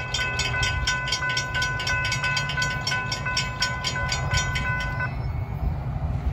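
Railroad crossing warning bell ringing rapidly, about three strikes a second, signalling an approaching train; it stops about five seconds in. A steady low rumble runs underneath.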